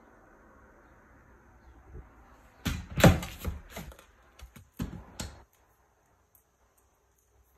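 Several sharp knocks and clatters in quick succession, starting about three seconds in and lasting some two and a half seconds, the first the loudest: a roof cargo basket's metal bars and plastic connector parts being handled and fitted together.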